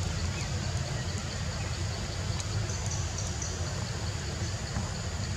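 Steady outdoor background noise: a constant low rumble under an even hiss, with a few faint, short high ticks.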